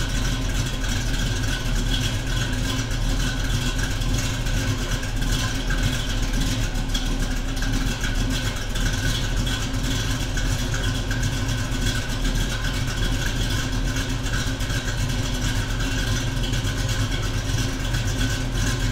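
1968 Camaro engine idling steadily.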